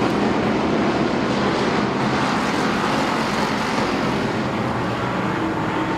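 A field of street stock race cars running at speed around an oval track, a steady blend of their engines.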